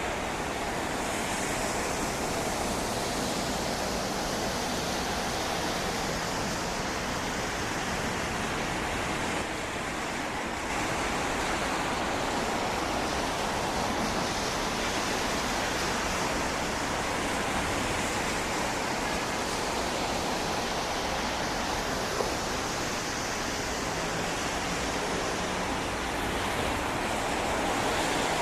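Steady, broad rushing noise of a Boeing 737-700's CFM56-7B turbofan engines as the airliner comes in on approach to land, a little louder near the end.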